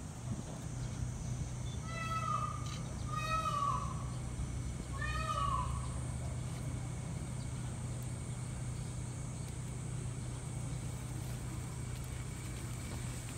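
Three short, high animal calls, whine- or mew-like, each falling in pitch at the end; the first two come close together about two seconds in and the third a second and a half later. A low steady hum runs underneath.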